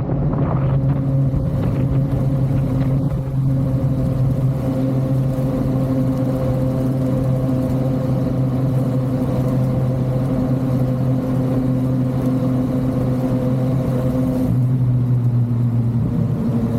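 Yamaha MT-09 inline three-cylinder engine and exhaust running at a steady cruising speed under way. Its pitch drops slightly near the end.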